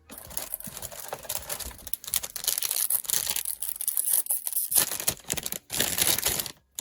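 Packet wrapper being torn open and crinkled by hand, a dense run of crackling with many quick clicks that eases off briefly midway and stops just before the end.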